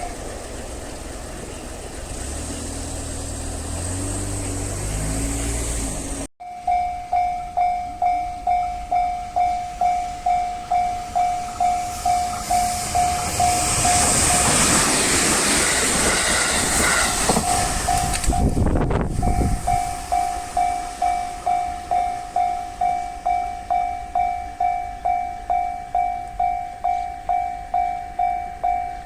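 Japanese level-crossing warning bell ringing about two strikes a second. Partway through, a train passes over the crossing: the noise of wheels on rail swells over the bell and then dies away. Before the bell starts, a train is heard running with a lower motor tone that steps up in pitch.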